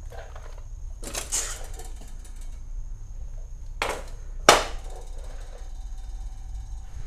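Dethatcher parts being handled during assembly: a rustling scrape about a second in, then two sharp knocks a little over half a second apart near the middle, the second the loudest with a brief ring.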